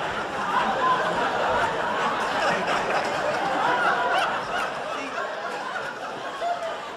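Live audience laughing in response to a punchline, many voices at once, easing off a little near the end.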